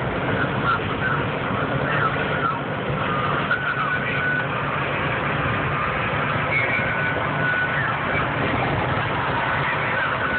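Steady engine and road noise of a truck driving at highway speed, heard from inside the cab, with a few short faint high tones in the middle.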